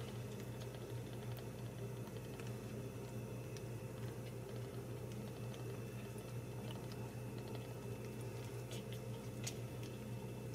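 Steady low electrical hum with faint scattered ticks and soft rustles from newborn kittens crawling on a fleece blanket; the ticks come a little thicker near the end.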